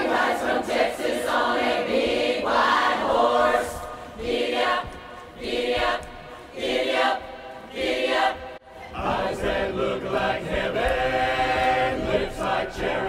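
Mixed chorus of men and women singing, in short clipped phrases with gaps in the middle, then a held chord near the end.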